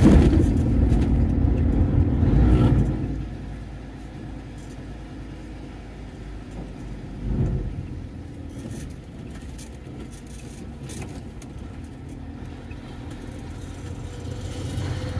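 Diesel truck engine and road noise heard from inside the cab: louder for about the first three seconds, then settling to a quieter steady running, with a brief swell about seven seconds in.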